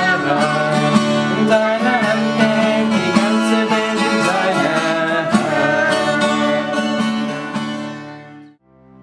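Music led by strummed acoustic guitar that fades out about eight seconds in. A soft, quieter piece of music begins just before the end.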